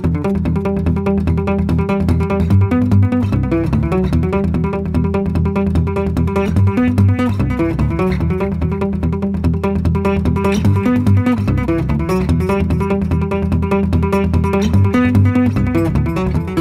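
Background music: fast solo acoustic guitar played fingerstyle, a dense unbroken stream of rapid notes over deep bass notes.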